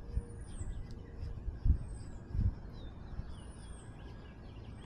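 Birds chirping: a thin, high call that rises and falls, repeated about every second and a half, with a few lower whistled notes. Under it runs a low rumble, with two dull thumps about two seconds in that are the loudest sounds.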